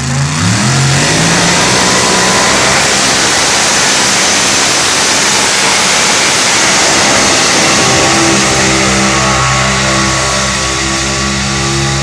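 2wd mini pulling tractor's open racing engine revving up and running flat out at full throttle as the tractor drags the weight sled down the track, very loud. About nine seconds in it eases off to a steadier, lower engine note.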